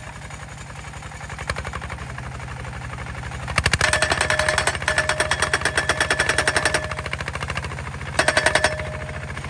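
Homemade hydraulic post-driving hammer pounding a steel fence post with rapid repeated blows: a burst of about three seconds starting about three and a half seconds in, and a short burst near the end. Its D15 single-cylinder diesel engine chugs steadily underneath.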